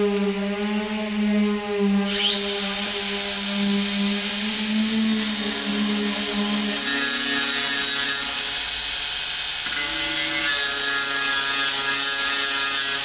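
Angle grinder spinning up about two seconds in with a rising whine, then grinding the bare steel body panel of a VW Golf Mk2 with a steady high whine and a hiss of abrasion.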